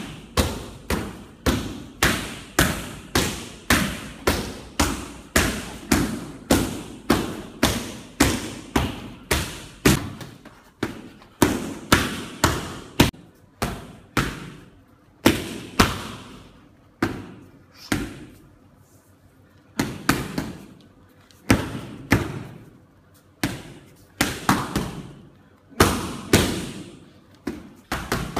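Boxing gloves smacking focus mitts in a rapid run of punches, about two hits a second with quicker combinations, each smack ringing briefly in the room. There is a short lull a little past the middle.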